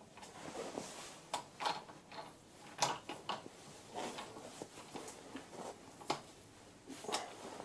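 Four-jaw lathe chuck being tightened onto a wooden stick with a T-handle chuck key: about a dozen irregular metallic clicks and knocks as the key is seated and turned and the chuck is rotated by hand, the loudest a little under three seconds in.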